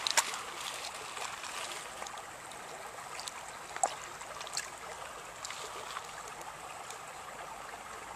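Shallow stream running over a gravel and pebble bed, a steady trickling, with a few light clicks, the sharpest just after the start and about four seconds in.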